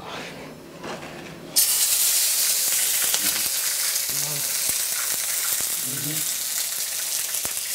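Chopped tomatoes hitting very hot cooking oil in a frying pan: a sudden sizzle starts about a second and a half in and keeps going steadily as the oil fries them.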